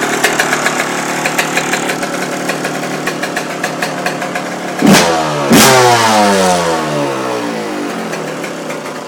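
Yamaha YZ125 two-stroke engine idling with a fast, ticking beat. It is blipped sharply twice about five seconds in, and each time the revs fall away slowly. The sound cuts off at the very end.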